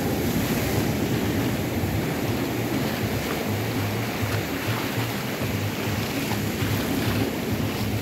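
Ocean surf washing up a shallow sandy beach in a steady wash, with wind buffeting the microphone as a low, fluttering rumble.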